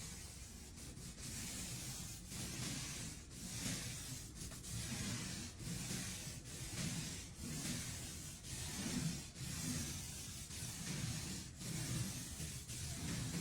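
Rhythmic rubbing strokes on a surface, about one a second, each a gritty hiss.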